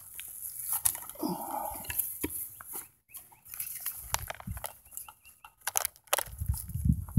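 Handling noise of a metal detectorist's gear: scattered clicks, knocks and clothing rustle as a shovel and a handheld pinpointer are picked up. A short falling squeak-like cry comes about a second in, and heavier low thumps begin near the end.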